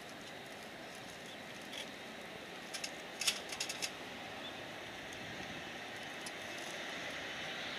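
Distant Rolls-Royce Trent 772B-60 turbofans of an Airbus A330-200 running at low taxi thrust as it lines up on the runway: a faint steady hiss with a thin whine, slowly growing louder. A brief cluster of sharp clicks about three seconds in.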